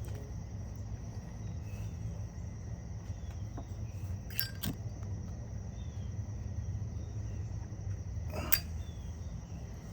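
Outdoor background with a steady low hum and faint scattered chirps, broken by a few sharp clicks: two close together about four and a half seconds in, and one more near eight and a half seconds.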